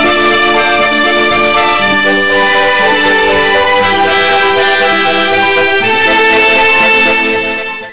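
Instrumental soundtrack music of many held notes sounding together as chords that change every second or two, fading out just before the end.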